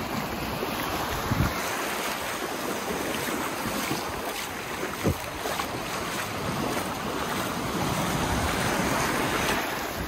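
Ocean surf washing up the beach in shallow sheets over the sand, a steady rush of water mixed with wind buffeting the microphone. The wash swells louder for a couple of seconds near the end, and there are two brief thumps, about a second and a half in and at about five seconds.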